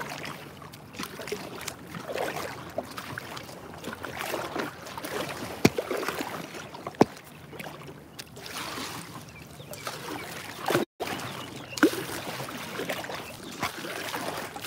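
Water splashing and trickling around an inflatable rubber boat being paddled, the wash swelling every couple of seconds, with a few sharp knocks.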